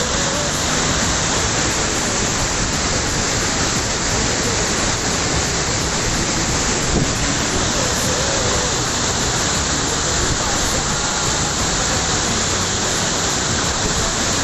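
Waterfall in heavy flow: a loud, steady rush of falling water.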